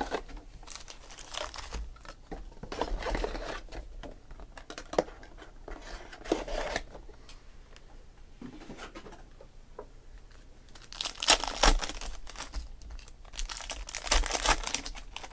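Foil wrappers of 2016 Panini Select Football card packs crinkling as they are handled, with louder crinkling and tearing in two spells near the end as a pack is ripped open.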